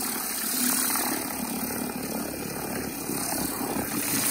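Pressure washer spraying its jet into a wash bucket of soapy water, filling it and whipping up suds: a steady hissing rush of spray and churning water.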